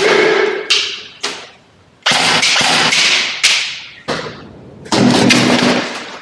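Airsoft guns firing several bursts in quick succession, each a second or two long with short pauses between.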